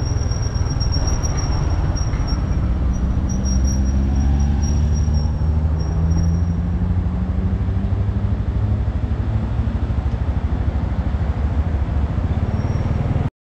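Motor scooter running under way, heard from the pillion seat with wind noise on the microphone; the engine note climbs a few seconds in as it picks up speed.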